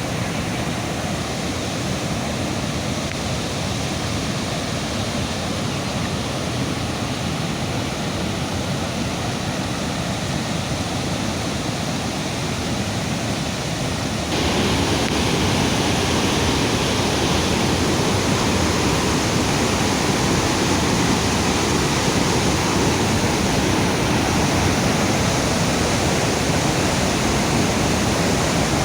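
Floodwater rushing steadily, a dense even roar of water; it jumps louder about halfway through.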